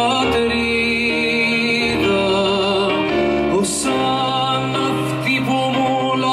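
Live band music: vocalists singing held notes with vibrato over keyboard and sustained low bass notes.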